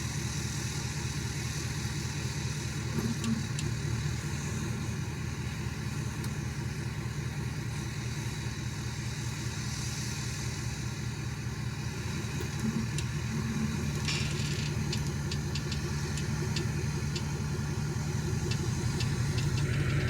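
Vehicle engine idling steadily, with a run of light clicks and taps joining in about two-thirds of the way through.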